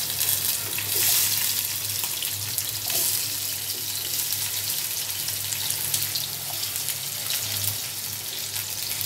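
Spring onion bulbs sizzling in hot oil in a non-stick frying pan: a steady hiss with light crackling, kept up as more pieces are dropped in.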